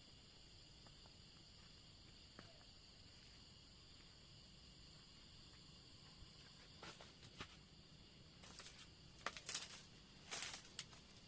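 Faint steady high-pitched chorus of night insects such as crickets. From about seven seconds in, irregular rustling and crackling noises join it and get louder toward the end.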